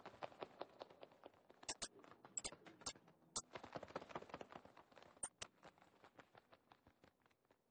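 Faint, irregular clicking and tapping, several sharp clicks a second over a low hiss, thinning out near the end.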